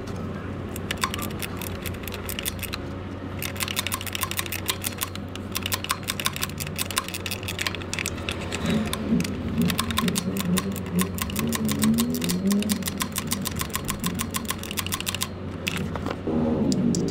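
Hand socket ratchet clicking rapidly in several long runs with brief pauses, as the starter motor's mounting bolts are run in and tightened.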